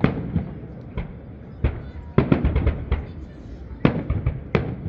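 Aerial fireworks exploding: a string of sharp bangs at irregular intervals, with a quick run of several bangs about two seconds in.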